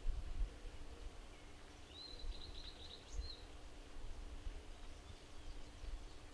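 A small songbird singing a quick trill of repeated high notes about two seconds in, over a low outdoor rumble and a faint steady hum.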